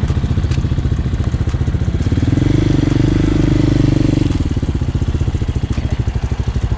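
Hawk 250cc motorcycle engine running at low speed with an even pulsing beat, picked up through a mic inside the rider's helmet. About two seconds in it swells louder for a couple of seconds, as the throttle is opened, then drops back to a lower steady run.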